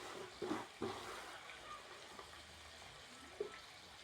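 Beef, onion, tomato and freshly added covo greens frying in a pot, sizzling softly and steadily.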